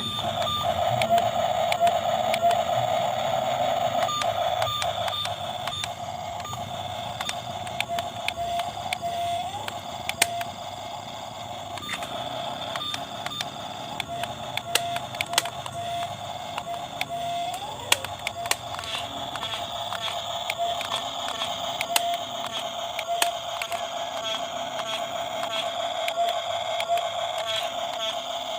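Small electric motor of a radio-controlled toy excavator whining steadily, with a brief rise in pitch twice, amid scattered sharp plastic clicks and knocks.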